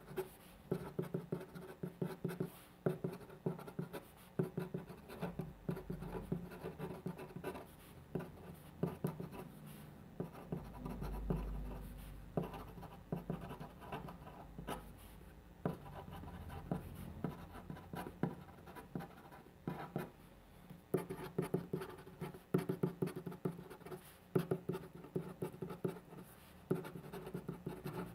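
Pen nib scratching across paper in quick short strokes, handwriting characters, with runs of strokes broken by brief pauses as the pen lifts and moves on.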